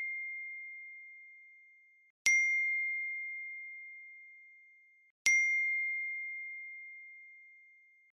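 Phone text-message notification chime: a bright single-tone ding that sounds about two seconds in and again about five seconds in, each ringing and fading away over roughly three seconds. The fading tail of an earlier ding is heard at the start.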